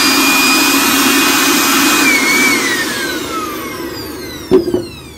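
Makita UB1102 electric blower, its brushed motor running steadily at full speed with a high whine while used as a vacuum. About two seconds in it is switched off and winds down with a falling whine. A sharp knock comes near the end.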